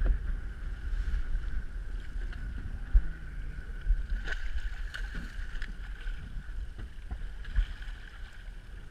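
Wind rumbling on the microphone over open water, with a steady high hum underneath and a few sharp knocks. A snagged paddlefish splashes at the surface near the end.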